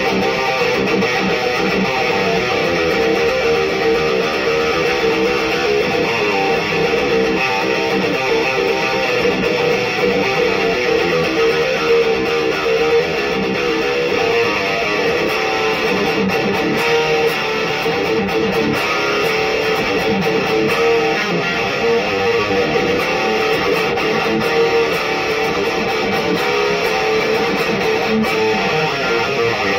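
Electric guitar, a Solar Guitars A2.6C, played through a Black Cat Amps Djenttonic high-gain distortion pedal used as a preamp, with an Electro-Harmonix 44 Magnum power amp into a 1x12 cabinet. It plays continuous heavily distorted metal riffs that chug.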